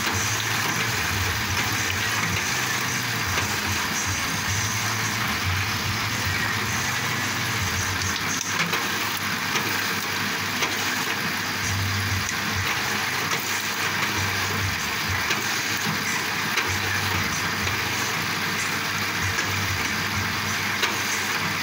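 Bamboo shaving machine for satay skewers running steadily, a constant mechanical noise with a low hum that swells and fades at intervals.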